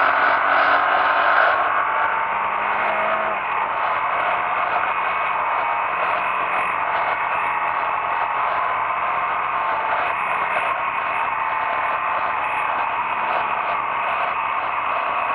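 Motorcycle under way, picked up by a camera mounted on the bike: steady wind and road rush over a muffled engine. The engine's pitch shifts in the first few seconds, then it settles into an even rush.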